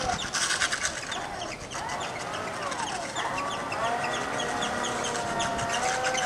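Electric brushless outrunner motor and propeller of a large RC Eindecker model taxiing on pavement, its whine rising and falling in pitch with the throttle a few times, then holding steady through the second half. A light, rapid ticking runs along with it.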